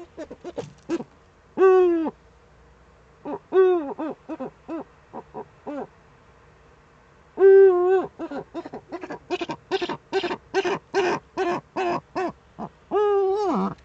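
Eurasian eagle owl calling: four drawn-out hoots that rise and fall slightly in pitch, between them runs of short clipped notes that come quickly in the second half.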